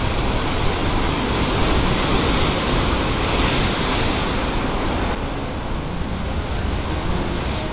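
Atlantic surf breaking on a rocky shore: a steady rush of white water that swells between about two and five seconds in as a small set wave breaks, then eases.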